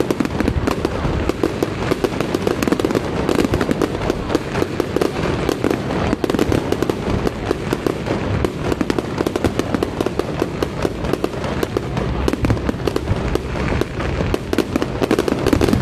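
Fireworks going off in a dense, unbroken barrage of many sharp bangs and crackles a second.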